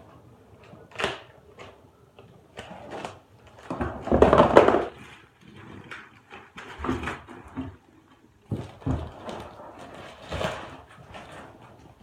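Cardboard box being cut open with scissors and handled: irregular scrapes and rustles, the loudest a longer scrape about four seconds in.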